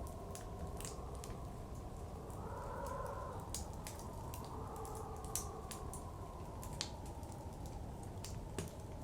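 Wood fire crackling and popping in irregular sharp snaps, over the steady low rush of blizzard wind that swells in a gust around three seconds in and again near five seconds.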